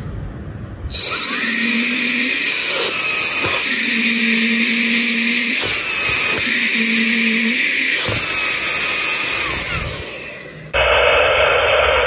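High-speed brushless vacuum fan motor (120 W, claimed 100,000 RPM) switched on at full power about a second in, running with a loud high-pitched whine that wavers up and down in pitch. It fades near the end, and a duller steady noise cuts in abruptly.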